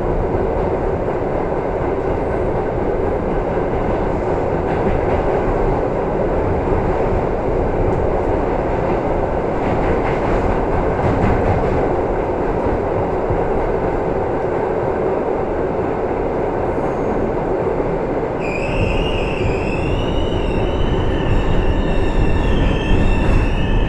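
An R62A subway car running in the tunnel, heard from inside the car: a steady loud rumble and roar of wheels on rails. Near the end a high, wavering wheel and brake squeal sets in as the train slows into the next station.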